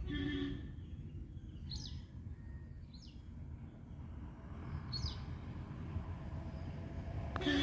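A bird calls three times with short, sharp downward-sweeping chirps, about 2, 3 and 5 seconds in, over a steady low outdoor rumble.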